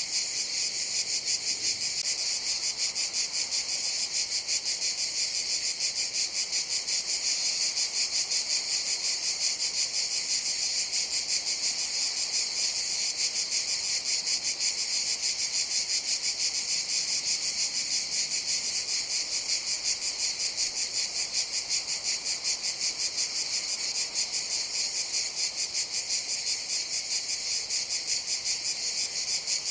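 A chorus of cicadas buzzing: a steady, high-pitched drone with a fast, even pulse.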